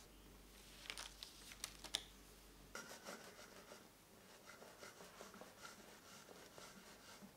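Faint crinkling of parchment paper being peeled off the sides of a sponge cake, with a few sharp crackles about a second in. After that comes soft, scratchy rubbing as hands handle the cake and a plastic cake leveler on a wooden board.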